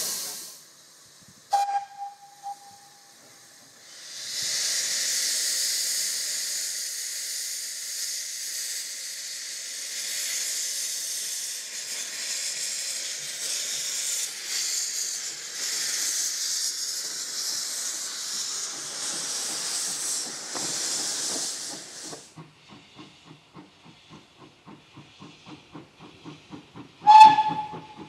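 Hudswell Clarke 0-6-0 saddle tank steam locomotive: a brief whistle toot, then a long loud hiss of steam from its open cylinder drain cocks as it moves off. This is followed by a steady rhythm of exhaust beats, about two or three a second, and a short loud whistle blast near the end.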